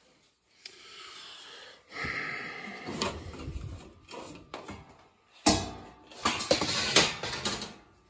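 Irregular rustling and clattering of hands working test leads and wiring inside a furnace cabinet, with sharp knocks about three and five and a half seconds in.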